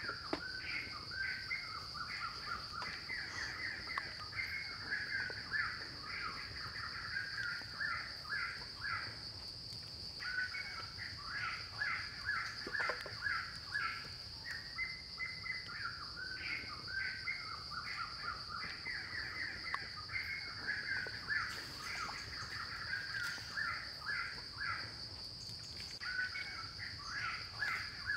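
Rapid runs of harsh, chirping animal calls, several a second, coming in bouts with short pauses, over a steady high-pitched insect drone.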